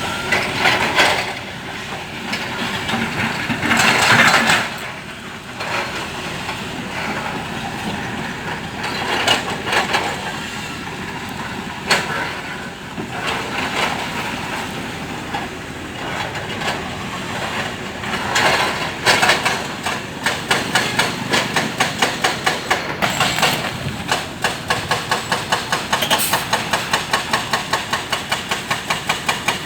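Hydraulic excavator working: diesel engine running with clanks and knocks from the machine. In the last third it settles into an even rapid pulsing, about two to three beats a second.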